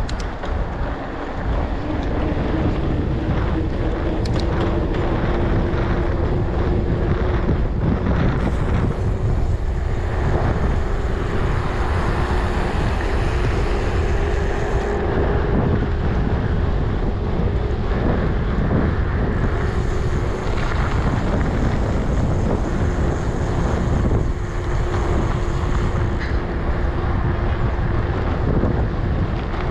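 Wind buffeting the microphone while moving along a trail, with a faint steady hum underneath.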